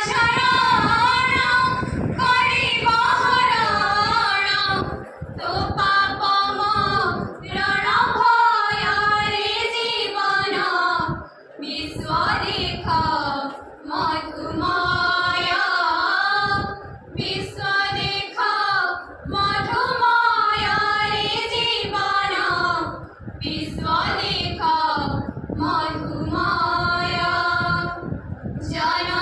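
A small group of young women singing a song together into a microphone, carrying one melody line in held, wavering notes with short breaks for breath. No instruments accompany them.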